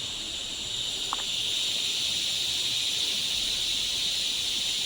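Steady insect chorus, a continuous high shrill trill, with one short chirp about a second in.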